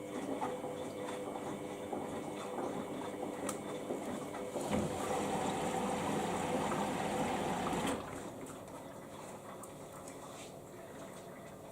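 Samsung ecobubble washing machine filling with water through its inlet: a steady rush of water that grows louder about halfway through and drops abruptly to a quieter flow a few seconds later.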